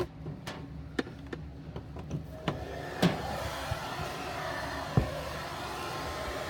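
Hair dryer handled with several sharp clicks, then switched on about three seconds in and blowing with a steady hiss, with one more click about two seconds later.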